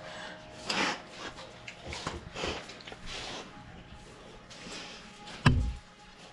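Dogs snorting and sniffing in short, breathy bursts, with one sharp knock about five and a half seconds in.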